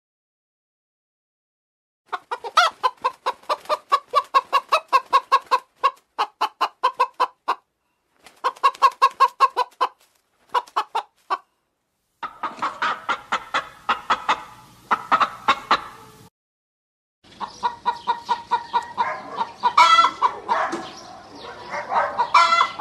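Hens clucking in fast runs of short notes, about five a second, starting about two seconds in. In the second half the clucking grows denser, several hens overlapping, with a brief break near the middle.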